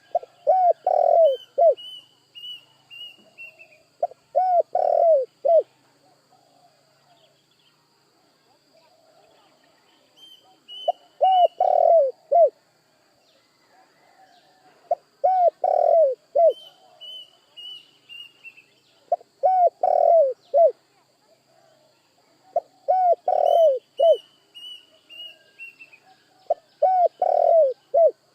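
Spotted dove cooing: seven phrases of three or four coos, about one phrase every four seconds. A smaller bird chirps now and then in short falling runs of high notes, over a faint steady high hum.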